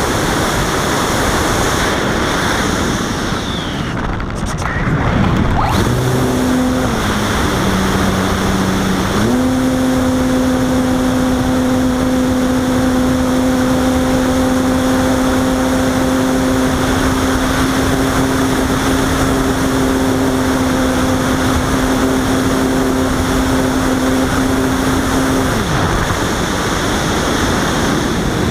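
Steady rushing air noise on the onboard microphone of a Robbe Arcus Sport RC glider in flight. About six seconds in, a steady hum with overtones joins it, dropping and then stepping up in pitch, holding level and cutting off a few seconds before the end.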